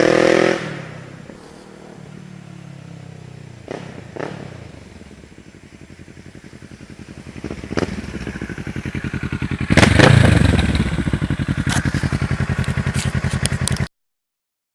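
Kawasaki Ninja 650R parallel-twin engine running through a replica Akrapovic exhaust: it drops from a rev to idle, is blipped briefly about 4 s and 8 s in, revs harder about 10 s in and settles back to idle, then the sound cuts off suddenly near the end.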